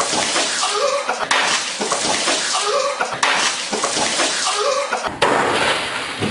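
Milk gushing and splashing from a burst gallon jug, a loud, even hiss of spraying liquid with a brief voice under it. The same two-second stretch repeats, each time starting abruptly.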